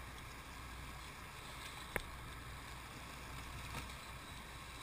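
Sportfishing boat under way: a steady low engine drone with water and wind noise, and one sharp click about two seconds in.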